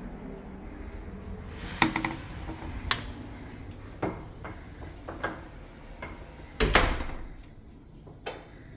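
A series of irregular knocks and clicks, about six in all, over a low steady background. The loudest is a double knock about two-thirds of the way through.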